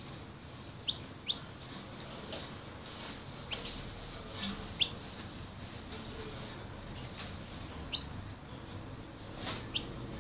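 Young caged songbird giving short, sharp chirps at irregular intervals, each a quick sweep in pitch, the two loudest near the end.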